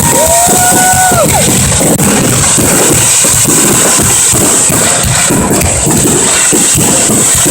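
Fireworks going off in a dense, continuous barrage of bangs and crackles. A firework's whistle holds a steady pitch, then drops and cuts off about a second in.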